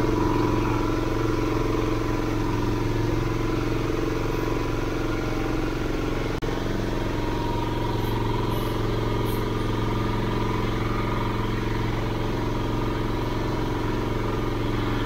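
Truck engine idling steadily, an even hum that does not change.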